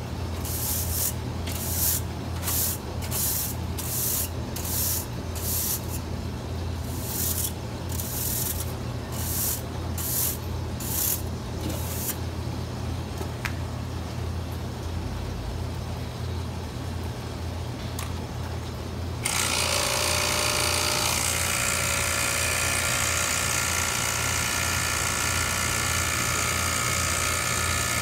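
Short hissing spray bursts, about one a second, over a steady low hum during refrigerator cleaning. About nineteen seconds in, a motor-driven cleaning tool starts suddenly with a loud, steady hiss and a held whine.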